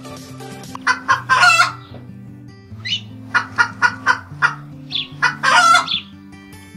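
Loud animal calls over background music: two longer calls about a second in, a quick run of short calls at about three a second in the middle, and another long call near the end.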